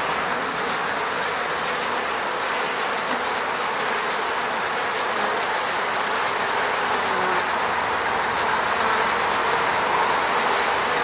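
Honeybees buzzing around their hive, many wingbeats merging into a steady, dense hum.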